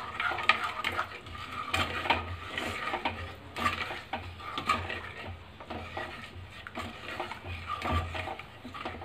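A spoon scraping and knocking irregularly against a kadhai while stirring thick besan halwa cooked in milk, working out the lumps.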